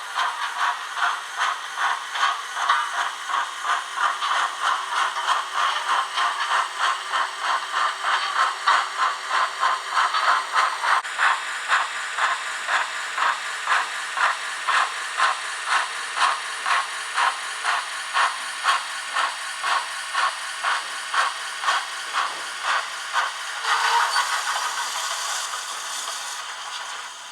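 Sound decoder of an Ixion J class model steam locomotive playing steady exhaust chuffs, about two to three a second. Near the end the chuffing stops and gives way to a louder hiss of steam that fades.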